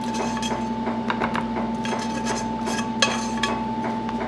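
A spatula scraping and knocking against a pan while sweet and sour sauce is stirred into pieces of chicken: a run of irregular clicks and scrapes over a steady hum.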